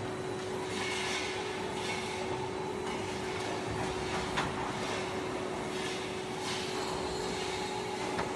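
Forging-plant machinery running: a steady hum with one constant tone, with swells of higher-pitched noise coming and going, and a single sharp click about four seconds in.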